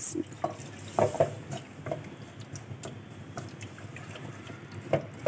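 Milk poured from a glass into a metal kadhai of cooked butter-and-flour roux, with a brief splashing hiss at the start. A wooden spatula then stirs and scrapes the lumpy mixture against the pan in short strokes, as the béchamel is being made.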